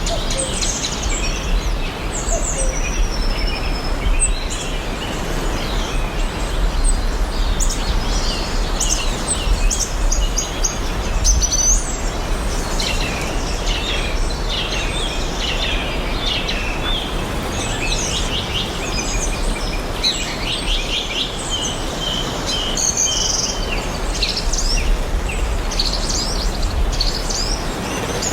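Several birds chirping and trilling over a steady background hiss of forest ambience, with a low rumble underneath.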